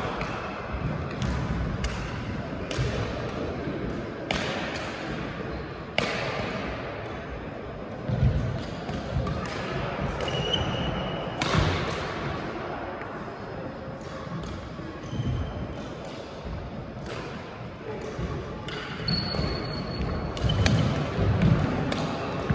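Badminton rackets striking a shuttlecock in a rally, irregular sharp cracks with a short echo after each, along with footfalls and a few brief high squeaks of court shoes on the floor.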